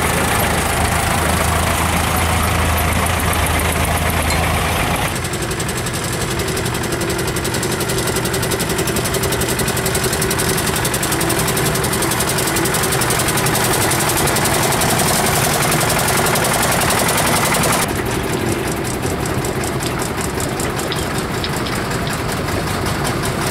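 Old farm vehicle engines running as the vehicles drive slowly past: first a tractor pulling a loaded trailer, then small Multicar utility trucks. The engine sound changes abruptly twice, about five seconds in and again about eighteen seconds in.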